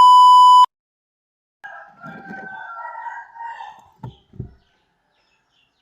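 A loud electronic beep lasting under a second, then a rooster crowing for about two seconds, followed by two short low thumps.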